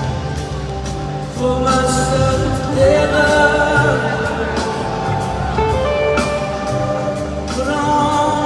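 Live band music heard from the audience: voices singing held notes over organ, guitar, bass and drums in a slow blues-rock song.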